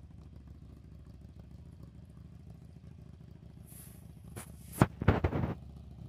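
Motorcycle engine running with a steady low, fast-pulsing rumble. About four seconds in there is a brief high hiss, then a few sharp loud thumps and a short noisy burst around the five-second mark.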